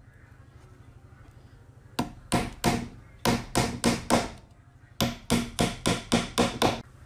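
Hammer driving small nails through a thin wooden strip into a wooden box's base board: about fifteen sharp strikes in three quick runs, starting about two seconds in.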